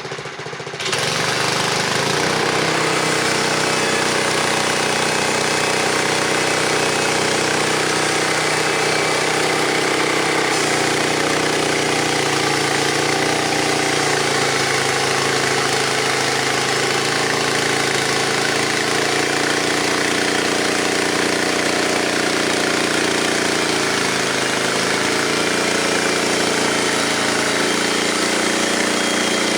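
Frontier OS23 portable sawmill's 7 hp 250cc Briggs & Stratton engine running steadily. It comes in abruptly about a second in, and its pitch shifts slightly twice, around ten seconds and near twenty-four seconds in.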